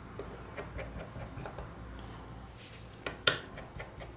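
Small clicks and light taps from handling a smartphone and its parts during a repair, with one sharper snap-like click about three seconds in, over a low steady hum.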